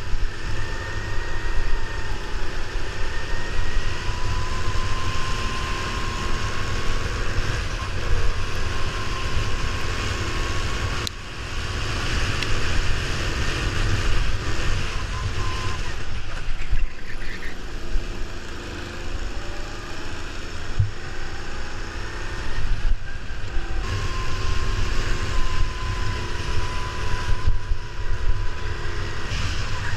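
Go-kart engine heard onboard while racing, its whine rising and falling as the kart accelerates and eases off, dipping briefly several times. A heavy low rumble of wind on the microphone runs under it.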